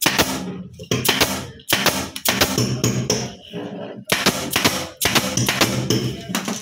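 Staple gun firing staples through elastic webbing into a wooden chair frame, several sharp snaps at uneven spacing, over background music with singing.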